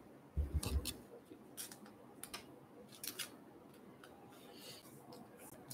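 Faint rustling and light clicks of a trading card being handled and slid into a clear soft plastic card sleeve, with a few soft low bumps under a second in.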